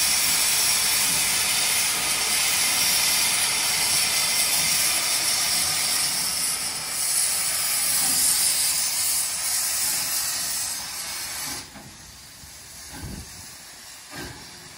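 Steam hissing loudly from a small steam tank locomotive's open cylinder drain cocks as it starts to pull away. The hiss cuts off suddenly about twelve seconds in, leaving the quieter sound of the carriage rolling past with a couple of low knocks.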